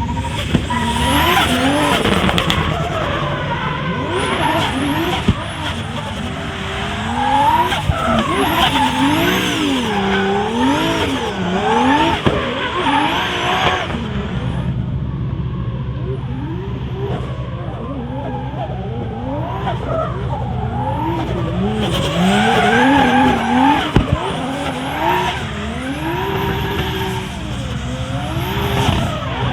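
Drift-spec Toyota Supra's turbocharged 2JZ-GTE straight-six revving up and down over and over as the throttle is worked through a drift, with tyre squeal and a few sharp cracks from the anti-lag system. It eases off for a short while near the middle, then pulls hard again.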